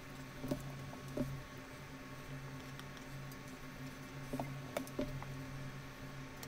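Cooked, cheese-coated rigatoni being packed upright into a metal springform pan by hand: faint soft squishes and about five light taps, over a steady low hum.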